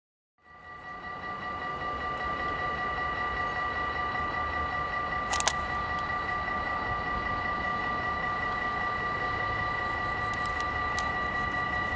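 Electric freight train hauled by NMBS locomotive 2819 approaching in the distance: a steady low rumble with several steady high whining tones, fading in at the start. A single sharp click comes about five seconds in.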